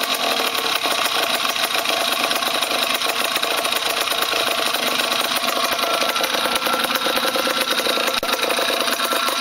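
Two-stroke motorized-bicycle engine, a Minarelli 70cc vertical cylinder kit on a Grubee GT5 bottom end, running steadily through its expansion-chamber pipe.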